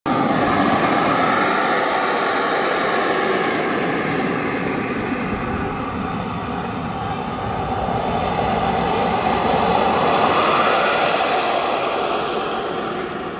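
Twin 120 N turbine engines of a CARF Su-27 model jet running loud and steady, with a very high whine that slides down and then back up over several seconds. The overall noise swells, dips for a moment and swells again, then eases off near the end.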